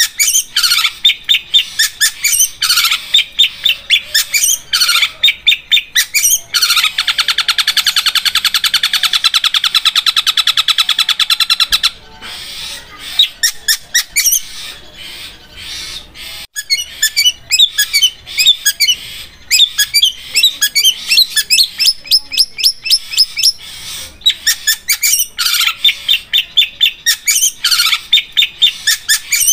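Long-tailed shrike (cendet) singing: quick runs of sharp, rapidly repeated notes, then, about seven seconds in, a continuous rattling trill like a sewing machine that lasts about five seconds. After it comes a quieter stretch of varied chirps and calls before the sharp rapid runs return.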